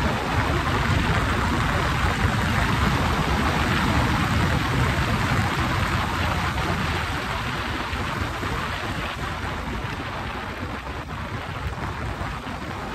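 Wind rushing and buffeting over the microphone of a motorcycle riding at road speed, with engine and road noise beneath it. The rush eases gradually over the second half.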